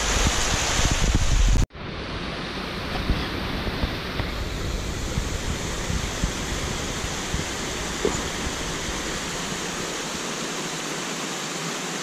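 Rushing water of a small woodland waterfall, loud at first as the water pours over shale ledges, then after an abrupt cut about two seconds in, a steadier, softer rush of a stream cascading down a rocky hillside.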